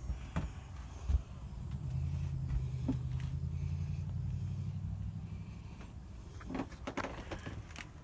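A low steady mechanical hum, with a few light knocks and clicks about a second in and again near the end.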